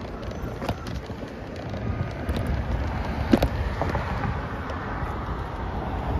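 Wind rushing and buffeting over the microphone of a moving ride, with a few sharp knocks and rattles as it goes over bumps. The loudest knock comes about three and a half seconds in.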